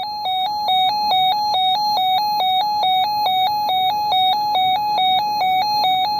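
Weather radio alert alarm for a Severe Thunderstorm Warning: a buzzy electronic tone switching rapidly back and forth between two close pitches, about two and a half high-low cycles a second.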